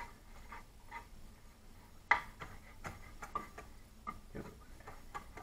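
Chef's knife chopping nori on a cutting board: light, irregular knocks of the blade on the board, roughly one every half second to a second.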